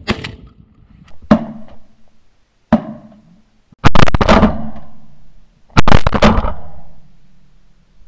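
Shotgun shots during a pigeon hunt: single sharp shots about one and three seconds in, then two loud shots about four and six seconds in, each trailing off over about a second.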